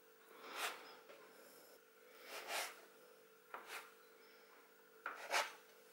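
A plastic bench scraper cutting through soft dough ropes and meeting a wooden board: a handful of faint, short scrapes spaced a second or so apart.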